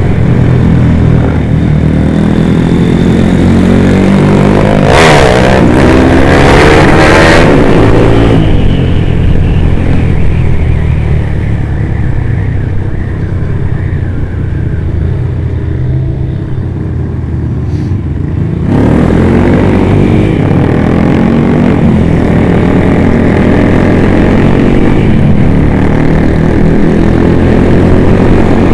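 Motorcycle engine running under way, heard from the rider's own bike with wind noise. The engine revs up and down several times about five to eight seconds in. The sound then drops away for about ten seconds, and the full engine and wind noise returns sharply about nineteen seconds in.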